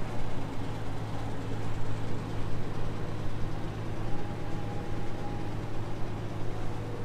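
Steady low hum and hiss of air-handling equipment (fans and a spot cooler) filling a large hall, with a faint high tone about four seconds in.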